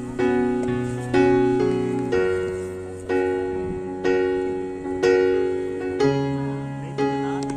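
Background piano music: slow chords struck about once a second, each dying away before the next.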